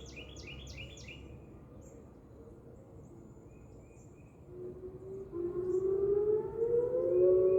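Outdoor tornado warning siren winding up about four and a half seconds in, two tones rising together and then holding steady, sounded for a tornado drill. Birds chirp briefly at the start.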